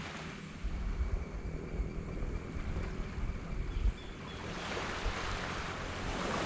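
Small waves washing on a sand beach, one wash fading out at the start and the next building up over the last couple of seconds, with wind buffeting the microphone in low rumbling gusts.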